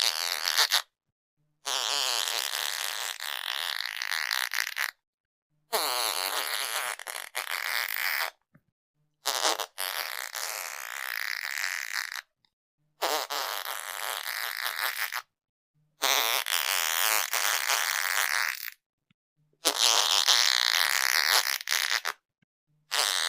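A series of fart sounds, about eight in a row, each lasting two to three seconds with about a second of silence between them.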